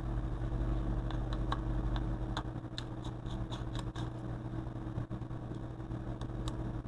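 Steady low hum throughout, with a few scattered small clicks and taps as a phone's flex connectors and screws are worked loose with fingers and a small screwdriver.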